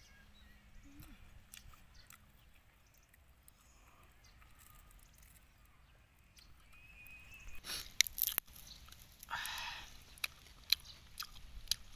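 Close-up eating sounds: faint chewing, then grilled fish being torn apart by hand, its crisp charred skin crackling in a few sharp clicks and a short rustle in the second half.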